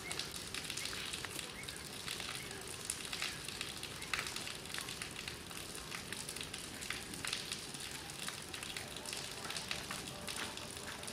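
Steady crackling background noise: many small irregular clicks and ticks over a constant hiss.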